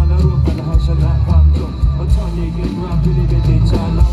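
Loud live rock band playing, with a heavy bass guitar, drums and a lead singer's voice over the top.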